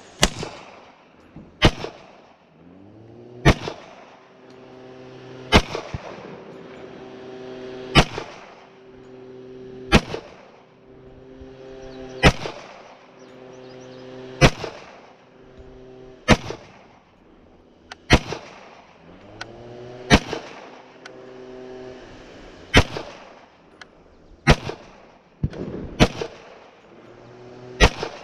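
KRISS Vector .45 ACP carbine fired in slow semi-automatic single shots, about fifteen in all, roughly one every two seconds and a little quicker near the end.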